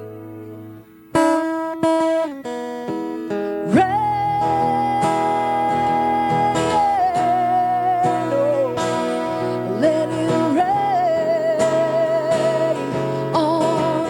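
Acoustic guitar playing chords after a brief hush, joined about four seconds in by a woman singing long held notes that slide between pitches.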